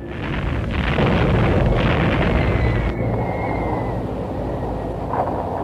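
Dense, low rumble of B-29 bomber engines, with a thin whistle slowly falling in pitch through the middle.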